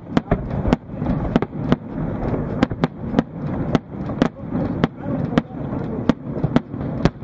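Aerial fireworks going off: a quick, irregular string of sharp bangs and cracks, two or three a second, over a continuous low rumble.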